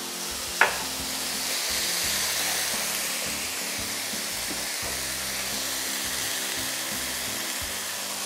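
Broccoli and onion canelloni filling with asparagus sauce sizzling steadily in a hot stainless steel skillet. One sharp click comes about half a second in.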